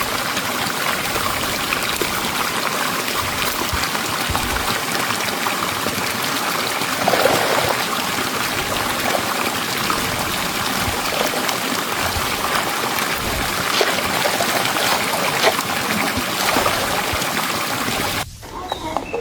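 Running water, a steady rush with a few brief louder splashes, cutting off abruptly near the end.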